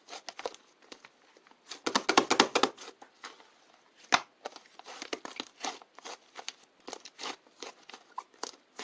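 Crinkling and crackling from something being handled, with a dense run of quick crackles about two seconds in, one sharper crack about four seconds in, and scattered clicks after.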